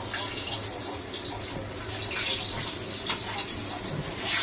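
A pet turtle scrabbling in its glass tank, its claws giving a few sharp scrapes and knocks on the glass and lid while the tank water splashes, over a steady low hum. Loud sizzling cuts in right at the end.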